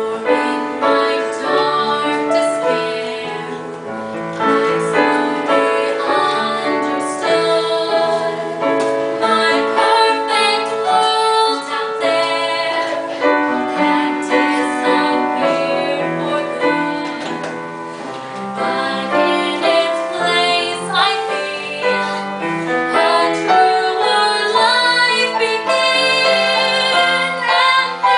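A female voice singing a slow song over piano accompaniment.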